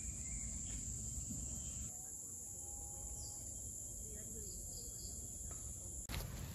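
Forest insects droning steadily at a high pitch.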